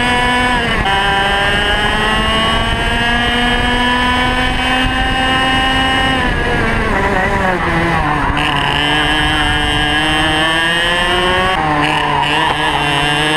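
Two-stroke TAG racing kart engine at full throttle, heard onboard with wind rush. It climbs steadily in pitch for about five seconds, falls away for a couple of seconds as the driver lifts for a corner, runs lower, then picks up again sharply near the end.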